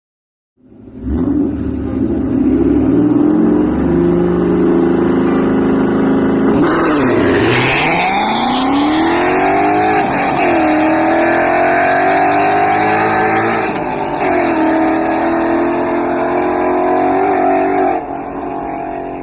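V8 car engine at high revs under hard acceleration, cutting in abruptly. About a third of the way in the pitch drops sharply and climbs back, like a gearshift, then the note holds high with a few brief dips before it drops in level near the end.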